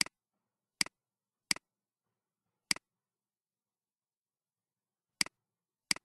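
Computer mouse button clicking six times at uneven intervals, each click a quick double snap of press and release, with dead silence between them.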